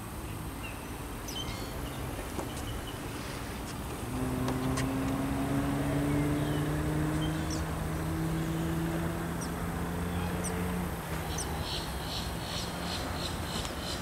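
Birds calling around a pond, with short high chirps throughout and a quick run of repeated high calls near the end. In the middle, for about seven seconds, an engine hum rises slightly in pitch.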